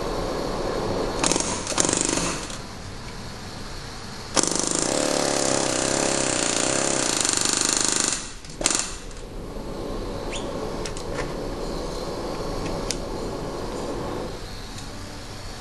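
Pneumatic air hammer driving new interference-fit valve guides into a small-block Chevy cylinder head. It runs in bursts: a short one a little over a second in, a long one of about four seconds in the middle, and a brief one right after it. A steady background hum continues between the bursts.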